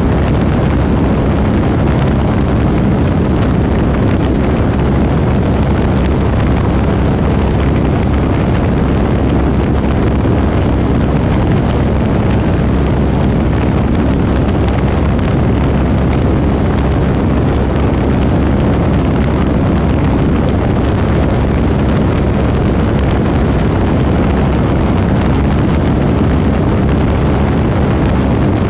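Light aircraft's propeller engine, a loud steady drone heard from inside the cockpit, its pitch unchanging.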